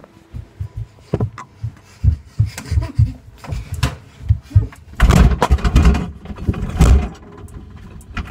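Handling noise on the recording device: an irregular run of thumps, clicks and rustles against the microphone, loudest and most continuous from about five to seven seconds in.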